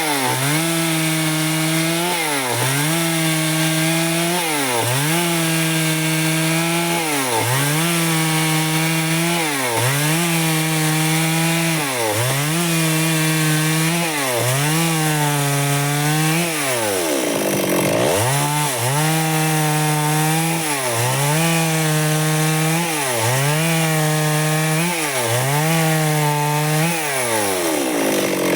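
Stihl chainsaw running at high revs while cutting wood into boards. Its pitch dips briefly about every two seconds as the chain takes load, with a deeper dip about two-thirds of the way through.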